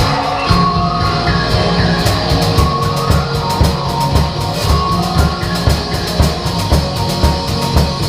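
A drum kit played along with a recorded rock-style song: steady kick drum beats under busy cymbal strikes, which get denser about two seconds in.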